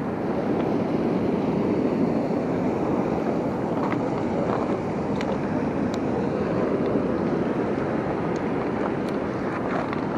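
Steady rushing of a fast-flowing river below a dam, mixed with wind on the microphone, and a few faint clicks.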